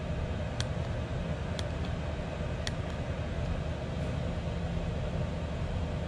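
5 kW Chinese diesel air heater running: its blower fan and burner give a steady rush of air with a low rumble. Three sharp clicks come about a second apart in the first three seconds.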